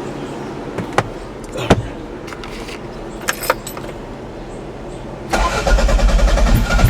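A few sharp clicks, then a Toyota MR2's engine is cranked and starts a little over five seconds in, settling into a loud, uneven running: the rough idle the owner is recording.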